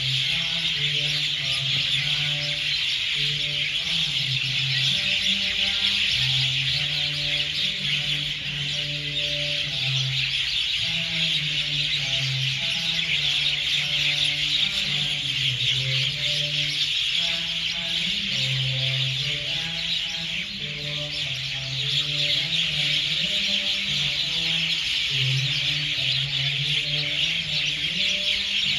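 A large flock of birds roosting in the trees keeps up a dense, steady chatter. Under it runs Buddhist chanting, low voices held on a few pitches and stepping between them.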